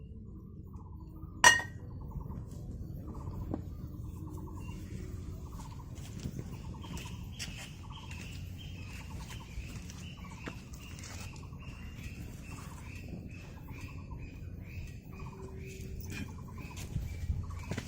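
Birds calling: a short buzzy note repeated about once a second, joined from about four seconds in by a long run of quick, falling whistled notes. A single sharp click about a second and a half in is the loudest sound, over a low steady background rumble.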